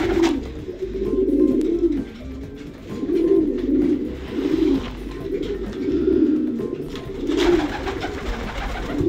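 Racing pigeons cooing over and over in a small loft, low coos in bouts of about a second each. A short flutter of wings at the very start as a pigeon takes off.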